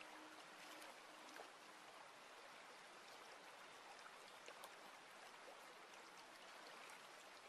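Faint trickle of water running over stones in a small garden stream and low stone-ledge cascade, with light drips and splashes here and there.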